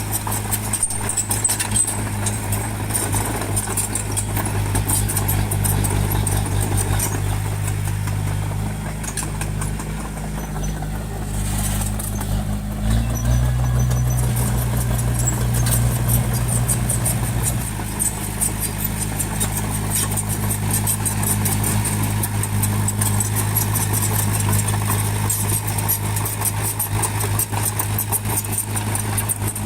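Bulldozer's diesel engine running steadily under a fast metallic rattle. About halfway through, the engine note steps up and is held higher for about four seconds, then drops back.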